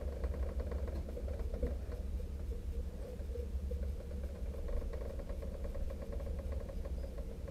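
Steady low rumble with a constant hum inside the cockpit of a stopped race car.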